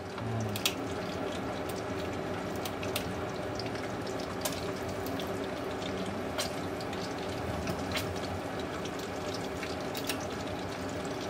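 Kitchen shears snipping the fins off a rabbitfish, a sharp click every one to two seconds, over the steady rush of running water.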